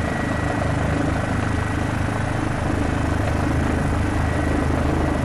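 Police helicopter's rotor and engine droning steadily, with a faint steady high tone above it.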